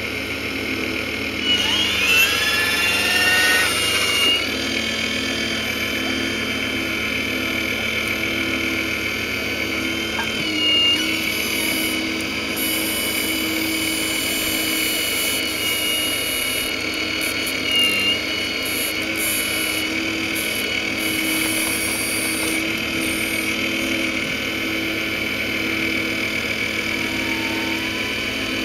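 Radio-controlled scale Hitachi Zaxis 870 LCH hydraulic excavator running as it digs, its pump and motors giving a steady whine whose pitch shifts briefly a few times.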